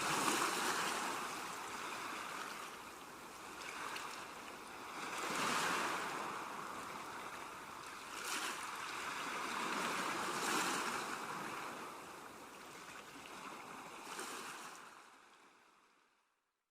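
Small waves washing onto the seashore, swelling and falling back every few seconds; the sound fades out near the end.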